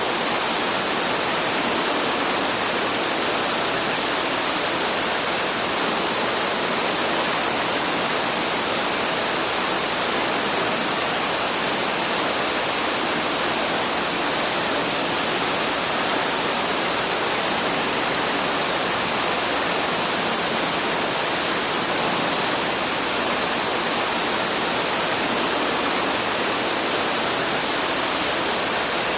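Waterfall pouring steadily, a constant even rush of falling water with no change in level.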